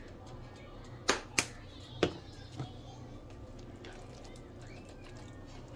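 Four sharp taps against a frying pan in the first half, as seasoning is shaken into chicken and vegetables and stirred in, over a faint steady hum.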